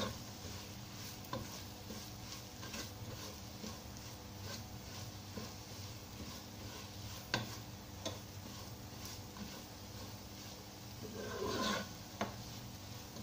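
Spatula scraping and stirring a thick, dry masala in a nonstick pot, in repeated short strokes with a few sharp knocks against the pot. There is a louder scrape near the end.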